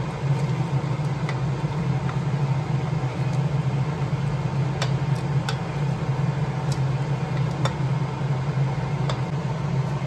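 A steady low hum with no break, with a few light clicks scattered through it.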